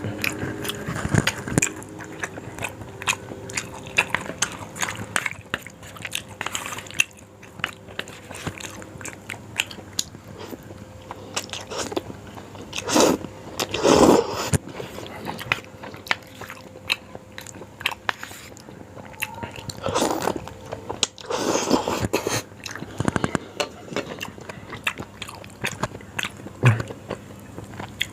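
Close-miked mukbang eating: a person biting and chewing yong tau foo, with many small wet mouth clicks and a few louder stretches of eating noise partway through.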